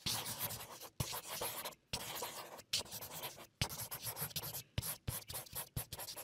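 Felt-tip marker drawing on paper: a quick run of scratchy strokes broken by short pauses, several of them starting with a small tap of the tip.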